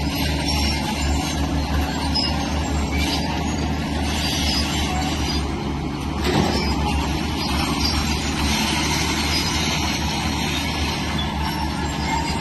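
Heavy diesel engine of a crawler earthmoving machine (bulldozer or excavator) running steadily under work, with a brief louder clank about six seconds in.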